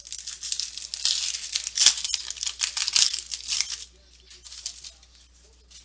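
Foil wrapper of a Panini Crown Royale football card pack being torn open and crinkled, a dense crackling for about four seconds, then quieter rustling as the cards are handled.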